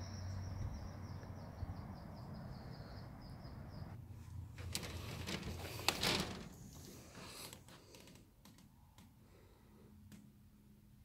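A bird chirping in a rapid series of high notes over outdoor background noise for the first few seconds, then a cluster of clicks and knocks from about four to seven seconds in, the loudest a sharp click about six seconds in. It then falls to quiet room tone with a faint low hum.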